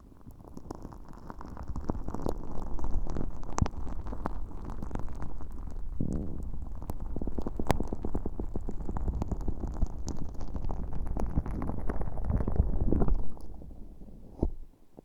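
An earpick working sticky slime packed with fine holographic glitter against a bare microphone's ear, close up. It makes dense sticky crackling and popping over a muffled rumble. It eases off about thirteen seconds in.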